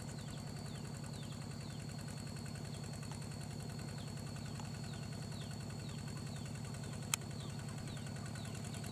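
Engine of a two-wheel walk-behind tractor running steadily, a fast, even low pulsing. Over it sit a steady high tone and short falling chirps repeating about twice a second. One sharp click about seven seconds in.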